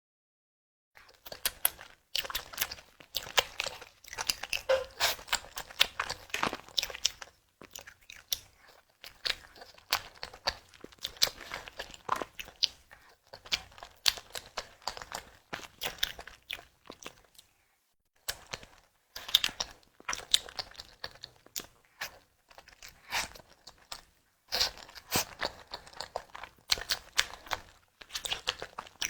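Close-miked eating sounds: a tiger skin dessert being bitten and chewed in bouts of rapid, sharp mouth clicks, with short pauses between bouts.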